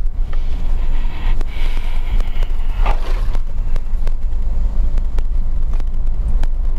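A car driven over a rough, potholed road, heard from inside: a steady low rumble with frequent small knocks and rattles as it jolts over the broken surface. About two seconds in, an oncoming motorcycle goes by.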